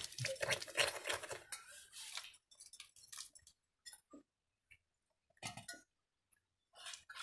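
Stainless steel bowls clinking and scraping as curry is served from one bowl into others, busiest in the first two seconds, then a few scattered soft clicks.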